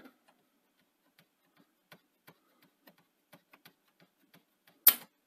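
Faint, irregular small clicks as the Betamax front-loading cassette basket mechanism is worked by hand, then one sharp, loud click near the end.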